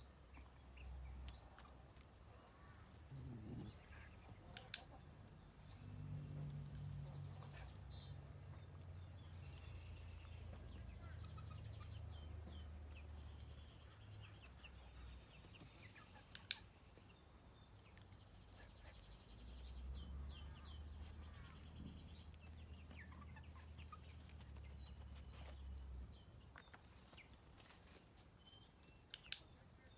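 Handheld dog-training clicker clicking three times, about twelve seconds apart, the later two as quick double clicks, marking the dog's behaviour for a treat. Birds chirp faintly over a low background rumble.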